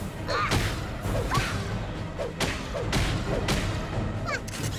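Cartoon fight sound effects: a string of about six punch impacts with whooshes, spread over a few seconds, over background music.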